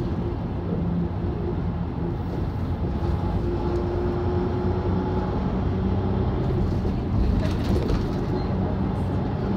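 Bus engine and road noise heard from inside the cabin while driving: a steady low drone, briefly louder with some rattling about three-quarters of the way through.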